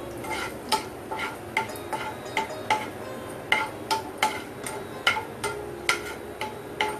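A metal slotted spoon clinking against a frying pan, about twice a second, as it stirs cashew nuts frying in oil.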